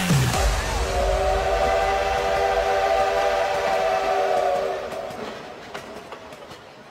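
Steam-train whistle sound effect: one long chord of several steady tones held for about four seconds over a low rumble, then fading out.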